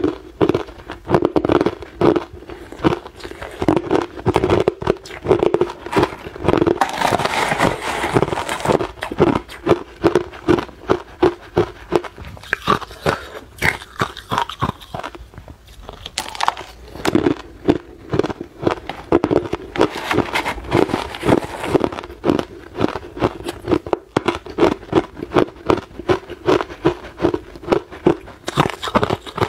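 Hard, clear ice being bitten and chewed close to the microphone: steady, rapid crunching, two or three crunches a second, with a brief pause about halfway through.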